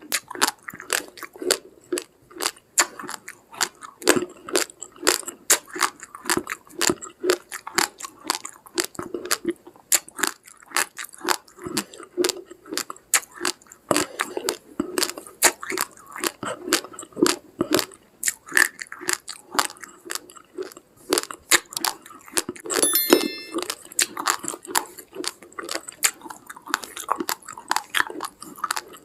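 Close-up crunching of uncooked rice grains being chewed, a rapid, irregular run of sharp crunches, several a second.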